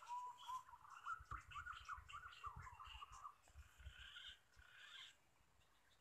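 Faint birdsong: rapid whistled, warbling calls gliding up and down in pitch, with low thumps and rumbles of handling or wind noise on the microphone.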